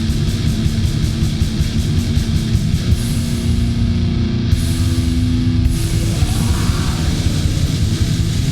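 War metal recording: heavy guitars and drums, with a fast, even run of cymbal strikes that stops about three seconds in.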